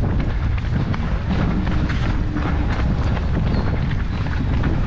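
Wind buffeting the microphone of a runner's GoPro action camera, a loud steady rumble, with scattered light taps of footfalls on pavement.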